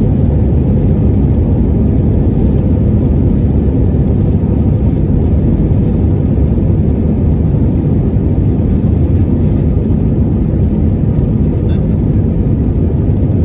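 Steady low rumble inside the cabin of an Airbus A319 rolling on the ground, its engines and wheels at an even setting with no spool-up.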